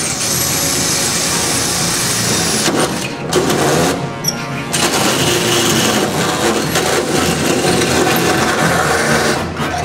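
Cordless drill spinning a large hole saw through the sheet-metal trunk lid, with a thin high squeal over the first few seconds of cutting. The cut stops briefly twice, about three and four seconds in, then runs on steadily.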